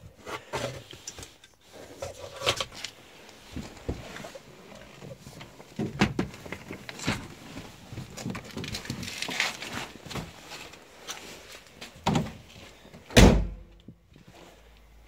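Plastic dashboard trim pieces from a 1984 Volkswagen Golf Mk2 being handled, with irregular clicks, knocks and rattles, then one heavy thump near the end.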